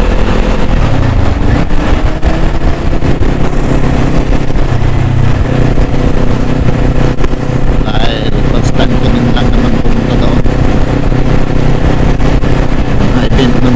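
Motorcycle engine running at a steady cruise while riding, under heavy wind rumble on the microphone. The engine pitch rises a little in the first seconds, then holds steady.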